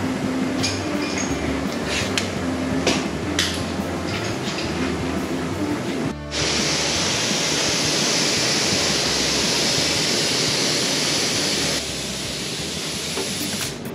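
Background music throughout, with a few sharp rips of masking tape in the first six seconds. After a cut, a gravity-feed paint spray gun hisses steadily for about five seconds as it sprays the door, then the hiss drops away.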